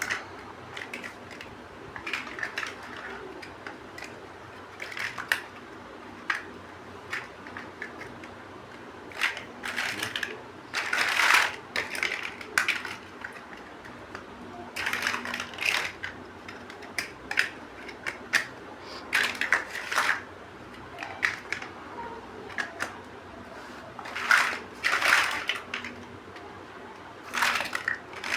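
Plastic building bricks being handled and pressed together: irregular clicks and clatters, with denser rattling flurries every few seconds.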